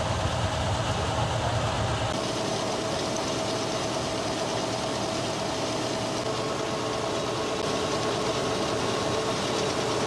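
Combine harvester running while its unloading auger pours threshed wheat into a trailer: a steady machine drone with a held tone. About two seconds in the deep rumble falls away and the hiss of pouring grain comes up.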